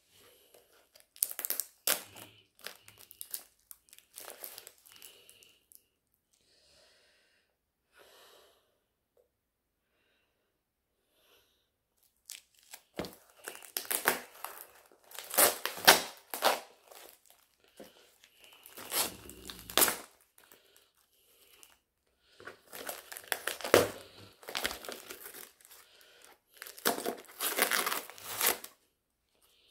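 Plastic poly mailer bag being torn and crinkled by hand, in bursts of rustling and ripping with a quiet pause of several seconds partway through.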